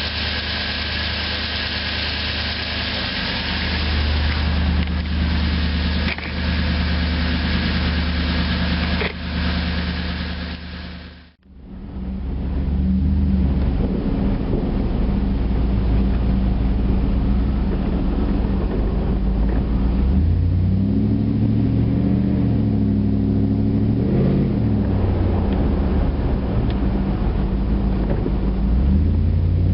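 Toyota Tundra engine running, carrying a tick the owner cannot place, suspecting valve tick, piston slap, an exhaust manifold leak or an injector. The sound cuts out briefly about 11 seconds in, then the engine runs on, its pitch rising and falling several times as it is revved.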